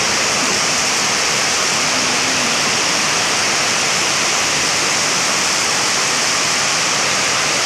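Heavy downpour: a loud, steady hiss of rain with no let-up.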